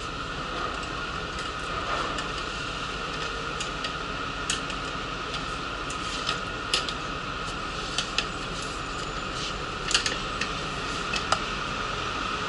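Steady hum inside a stationary city bus, with a series of sharp metallic clicks and clinks from the wheelchair securing belts and hooks as the driver fastens them, most of them in the second half.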